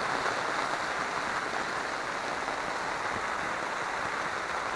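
Steady rain pattering on the fabric roof of an inflatable air awning.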